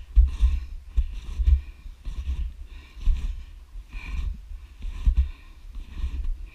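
Snowshoe steps on thin snow, heard from a head-mounted camera: a series of soft crunches, about one to two a second, each with a low thud, mixed with hard breathing from the effort of snowshoeing.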